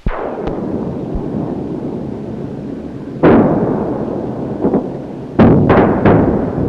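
Explosions: sudden heavy booms with long rumbling tails, one at the start, another about three seconds in, and three in quick succession near the end, over a steady rushing rumble.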